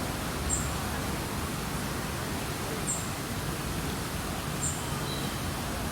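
Steady outdoor background noise with a faint low hum. A small bird gives short, high double chirps three times over it.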